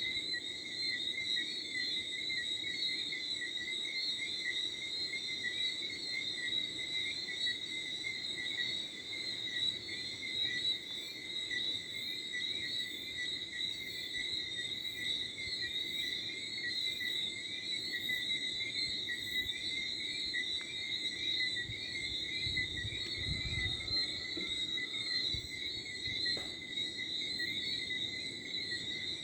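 Night chorus of crickets and frogs, a dense, steady trilling in two high pitches, with a slow series of very faint, very high chirps in the middle. Light wind rumbles low briefly late on.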